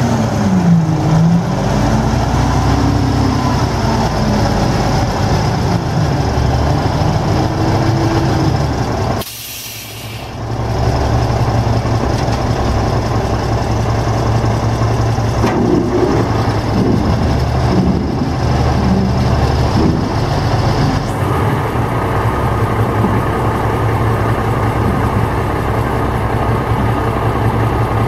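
Cummins N14 inline-six diesel of a 1988 Ford L9000 dump truck running steadily with the dump bed raised. A brief hiss comes about nine seconds in, followed by a dip in level of about a second.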